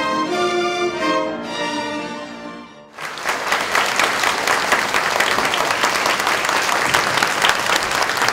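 A string orchestra of violins and cellos plays the last bars of a piece, its final chord fading out; about three seconds in, an audience breaks into steady applause that carries on.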